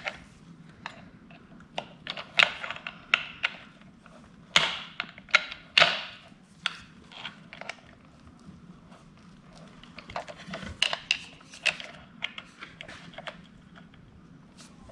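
Irregular sharp metal taps and clicks of hand tools working a lock washer's tab down against a freshly torqued nut on a motorcycle engine, in two bouts with a quieter pause between.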